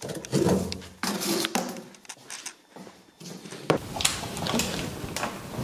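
Hands handling hard plastic parts: a string of knocks, clicks and rustles, with a quieter gap in the middle.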